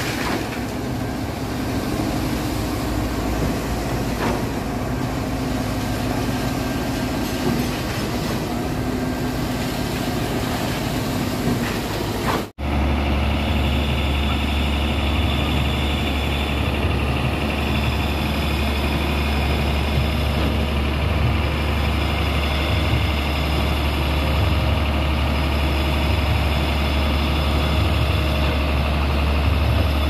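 Concrete pump truck running while pumping concrete up its boom: a steady heavy machinery din with a constant hum. About twelve seconds in the sound changes abruptly to a closer, deep, steady diesel drone from a Hino 500 ready-mix concrete mixer truck running at the pump.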